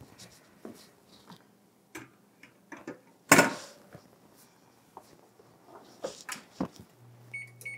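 A hot glass 9x13 baking dish is set down onto a metal wire cooling rack with one sharp clatter about three seconds in, among lighter handling clicks. Near the end the wall oven's door is shut with a few knocks, followed by short electronic beeps from the oven's controls.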